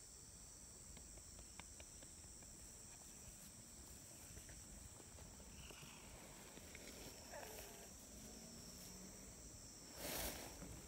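Faint, steady, high-pitched drone of insects calling. About ten seconds in, a brief, louder brushing rustle close to the microphone.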